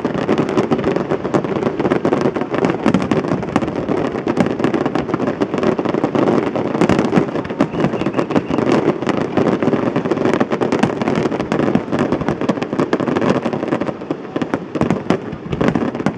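Fireworks display at full intensity: many aerial shells bursting together in a dense, continuous barrage of bangs and crackling.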